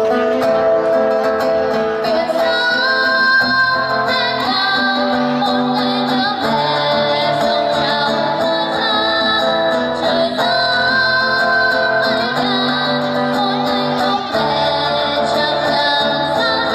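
A woman singing a slow song into a microphone, holding long notes with vibrato, accompanied by an acoustic guitar.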